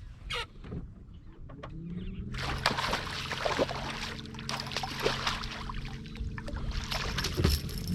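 A motor on a fishing boat spins up about two seconds in, its hum rising in pitch and then holding steady, with water rushing and splashing over it.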